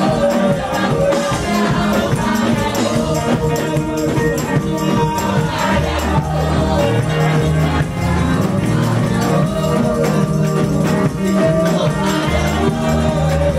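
Gospel music: a group singing over a bass line, with shaken hand percussion keeping a steady beat.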